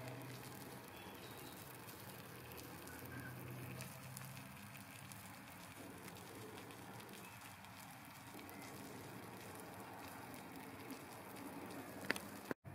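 Braising liquid of lamb shanks in red wine simmering gently in a slow cooker: a faint, steady crackle and patter of small bubbles with a low hum underneath. A single sharper click comes near the end.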